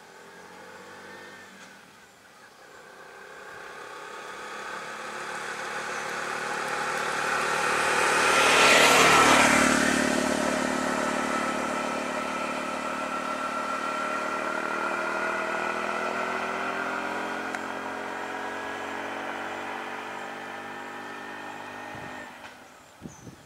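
Auto-rickshaw engine approaching and passing close by, loudest about nine seconds in. Engine sound carries on after it and stops abruptly near the end.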